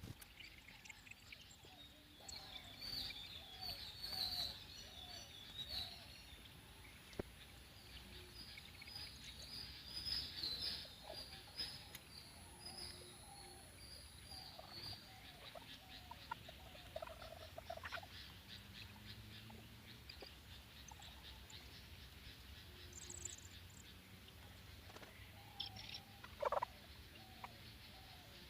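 Birds chirping and calling, faint overall: bursts of high, rapid trilling chirps in the first half, scattered lower calls throughout, and one louder short call near the end.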